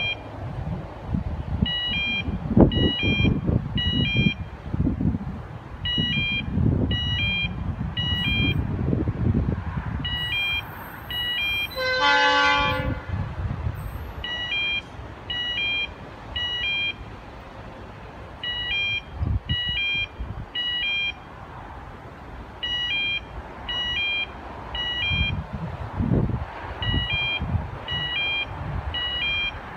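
An approaching diesel freight train's locomotive horn sounds once, for about a second and a half, about twelve seconds in. Throughout, short high beeps repeat in groups of three or four every couple of seconds, over irregular low rumbling.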